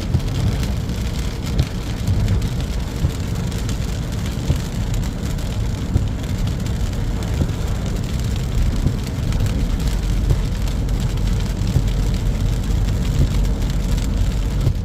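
Rain falling on a moving car, a steady hiss with scattered drop ticks over a continuous low road and engine rumble.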